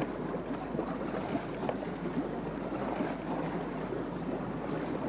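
Wind and sea water rushing along the hull of the sailing wherry Albion, a steady noisy wash with wind on the microphone. A sharp click right at the start.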